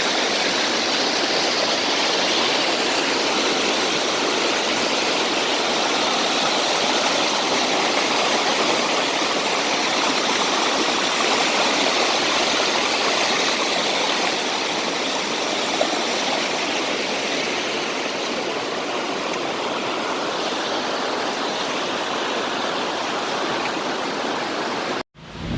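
Steady rushing of water cascading down Dunn's River Falls. It cuts off abruptly near the end.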